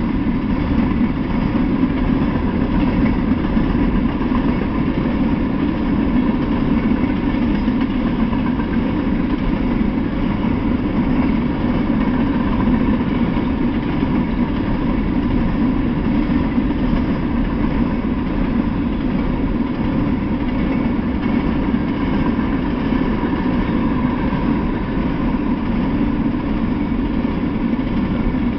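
Freight train of open-top hopper cars rolling past on the rails: a steady, unbroken noise of wheels on track.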